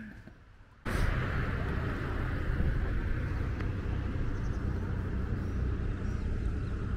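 A steady low rumble that starts suddenly about a second in, after a moment of near quiet.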